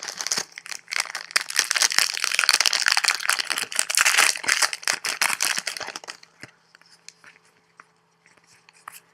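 A trading card pack wrapper being torn open and crinkled in the hands, a dense crackling for about six seconds. After that come a few faint ticks as the cards are handled.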